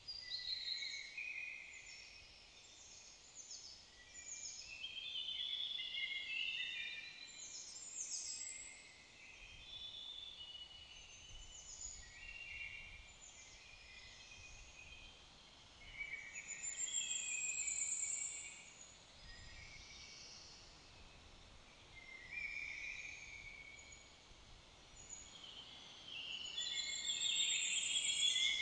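Songbirds singing in repeated short phrases of high chirps and trills, over a faint steady background hiss, busiest and loudest near the end.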